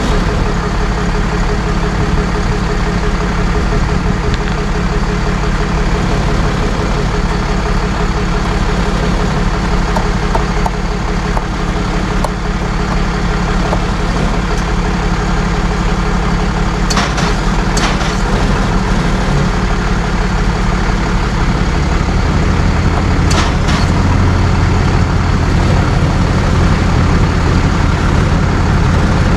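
Tow truck's engine running steadily under load, its low note rising about 22 seconds in, with a few short clicks near the end.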